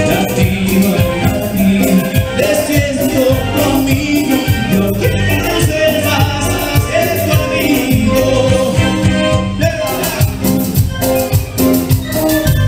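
Live band playing Latin dance music with a steady beat: bass guitar, acoustic guitar and keyboard.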